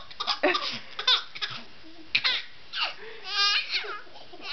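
Baby laughing in a string of short, separate bursts, with a higher, held squeal about three and a half seconds in.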